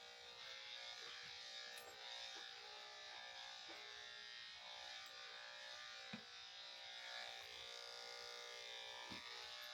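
Electric dog grooming clippers running with a steady buzz, and a few small clicks.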